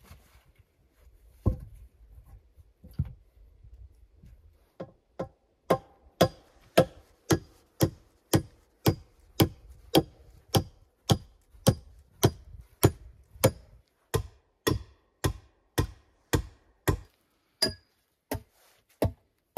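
A steady run of sharp, evenly spaced blows of a tool on wood, about two a second and some two dozen in all, with a few scattered knocks before the rhythm settles in.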